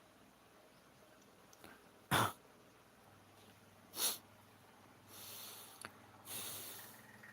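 A cat sneezing twice, about two seconds apart, then breathing out twice in long, breathy snorts.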